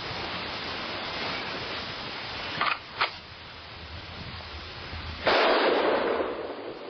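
A single rifle shot about five seconds in, loud and sudden with a long fading echo. Two short sharp clicks come a couple of seconds before it, over a steady hiss.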